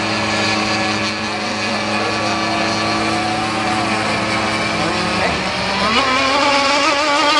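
Radio-controlled model unlimited hydroplane engines running at racing speed, a steady high-pitched drone. About five seconds in, one engine note drops away and another rises and wavers.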